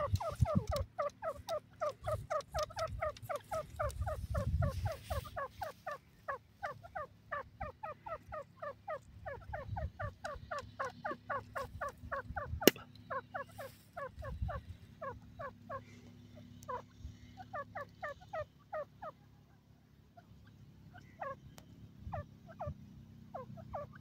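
Grey francolin calling in a fast run of short, slightly falling notes at about four a second, thinning out to scattered single notes after about fifteen seconds. A single sharp click about halfway through.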